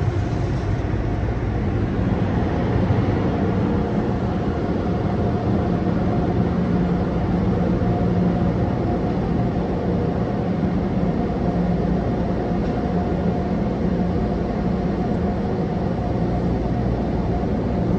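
Tunnel car wash machinery running, heard from inside a car in the wash: a steady whooshing noise with a low, even drone under it.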